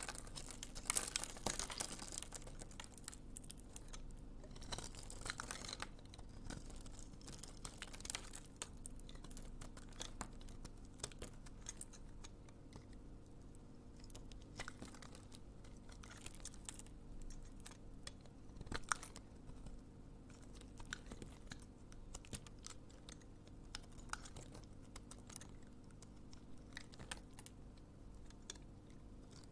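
Knife cutting dry bar soap into cubes: crisp crunching and crackling, densest in the first few seconds, then scattered sharp clicks as the blade goes through.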